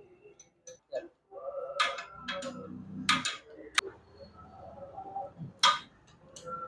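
A spanner clinking on the rear wheel's axle nut as the nut is fitted and tightened: several sharp metallic clicks and knocks, spaced irregularly.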